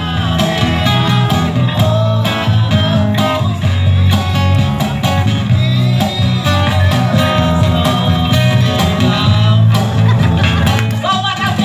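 Live acoustic band: strummed acoustic guitars and a cajón keeping the beat, with a man singing into a microphone through a PA speaker.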